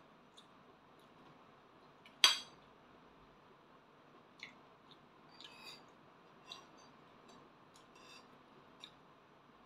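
Metal spoon and fork clinking and scraping on a plate of fried rice: one sharp clink about two seconds in, then a run of lighter taps and clicks.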